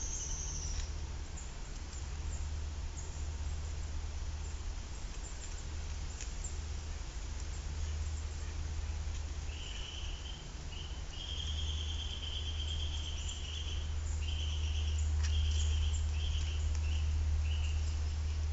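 Outdoor garden ambience with a steady low rumble and now and then faint clicks from a grey squirrel gnawing a pumpkin stem. From about halfway, a high-pitched chirping call repeats in several short bursts.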